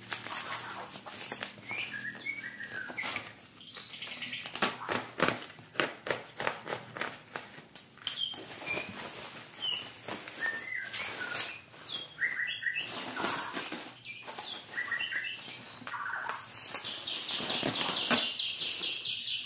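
Plastic bubble wrap crinkling and rustling as it is pulled off a cardboard box, in many short sharp crackles. Small birds chirp in the background, and a fast chattering trill starts near the end.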